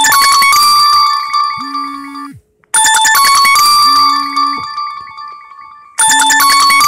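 Smartphone ringtone for an incoming WhatsApp audio call: a bell-like chime phrase that repeats about every three seconds, starting sharply and fading each time, with a short low hum between the rings.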